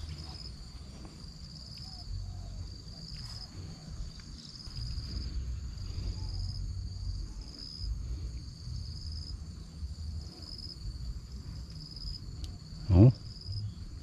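Crickets or other insects calling steadily in a high, pulsing trill, over a low rumble. About thirteen seconds in, a brief loud sound sweeps up in pitch.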